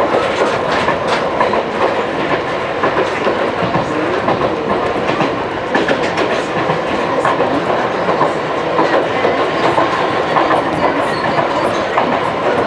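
Running noise inside the trailer car of a Wakayama Electric Railway 2270 series electric train in motion: a steady rumble with the wheels clicking over rail joints again and again.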